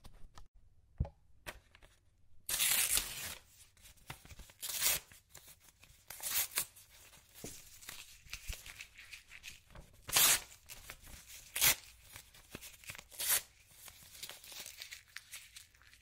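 Paper ripping in a series of tears: one longer rip about two and a half seconds in, then shorter rips every second or two, with faint crinkling between them.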